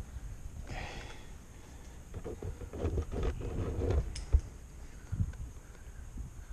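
Helmet-mounted camera picking up a climber's movement on rock: low rumble and rustling, scuffing strokes for a couple of seconds, and one sharp knock about four seconds in.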